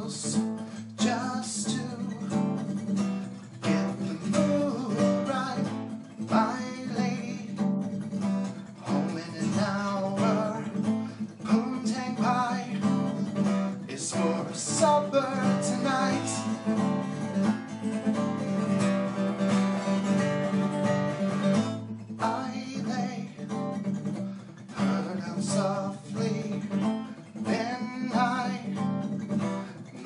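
Acoustic guitar strummed steadily while a man sings along, with a short break in the playing about two-thirds of the way in.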